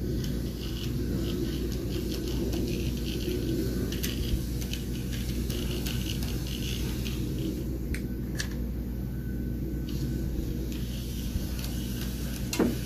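OO gauge model locomotive running with a GWR Iron Mink van: a steady motor hum with wheels clicking over the track. There is a sharper click near the end.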